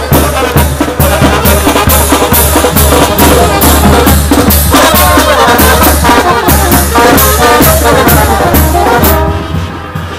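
Live marching brass band, with saxophones and brass over a steady low bass line and an even drum beat. The drumming stops and the band grows quieter about nine seconds in.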